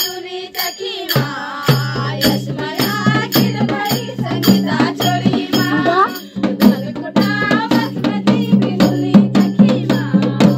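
A Pahadi chanchari (chachari) folk song sung by a group in chorus, over hand percussion struck in a steady beat of about three strokes a second.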